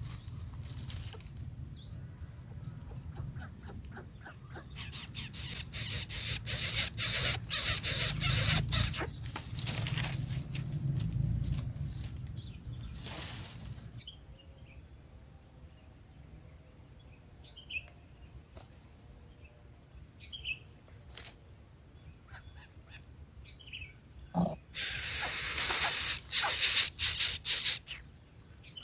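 Dry palm fronds and nest grass rustling and crackling in two loud spells as an adult coucal moves about its nest feeding the chicks, with a few faint chirps in the quieter stretch between.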